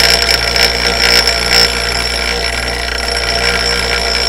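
Bench grinder's stone wheel grinding a chamfer on the back edge of a Buell/XL cam lobe: a loud, steady high-pitched ringing grind over the grinder motor's hum, a little uneven in the first two seconds as the lobe is rocked back and forth against the wheel.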